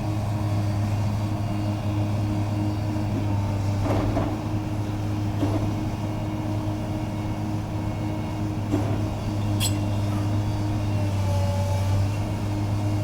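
Diesel engine of heavy demolition machinery running steadily, with a couple of clanks, one about a third of the way in and one about two-thirds in, and a brief high squeak just after the second.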